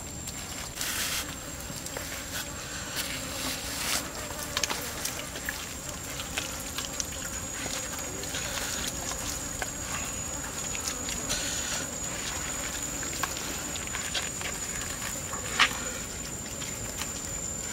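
Wet squelching, slaps and clicks of hands rubbing marinade into a rack of raw pork ribs in a pan, with a sharp knock about 15 seconds in. A steady high-pitched insect drone runs underneath.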